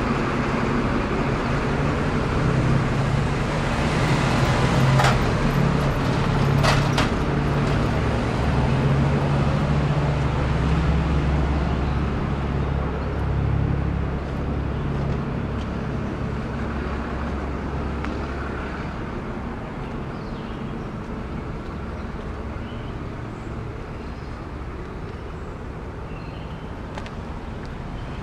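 Steady low rumble of a heavy engine running, fading away over the second half. There are two short sharp sounds about five and seven seconds in.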